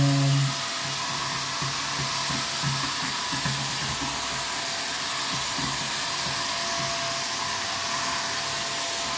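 INALSA Dura Clean 800-watt handheld vacuum cleaner running steadily: an even rush of air with a constant whine from the motor. It is sucking up scraps of paper and dust through its brush attachment.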